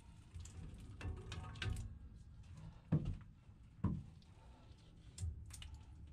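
PowerTwist link V-belt being worked by gloved hands onto a blower pulley: rustling and clicking of the belt links against the pulley and housing, with two sharp knocks about three and four seconds in.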